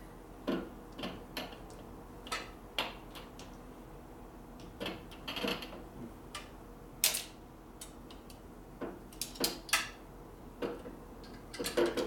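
Irregular metallic clicks, taps and clinks of hand tools and metal parts being handled on a motorcycle during assembly, some with a short ring.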